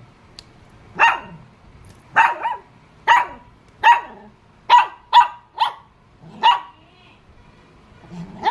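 A puppy barking in short, high-pitched yaps, about nine at uneven intervals, some in quick pairs.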